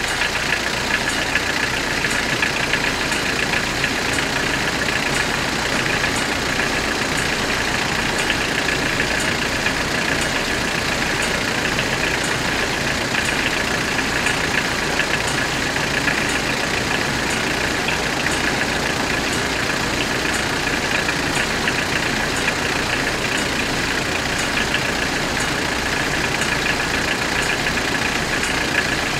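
Level crossing warning bells ringing continuously, a rapid, even ringing that does not let up. It warns that a train is approaching the closed crossing.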